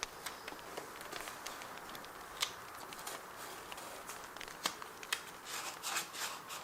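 Paper being handled and crinkled, with a short burst of rustling about five and a half seconds in, over a steady crackling bonfire with scattered sharp pops.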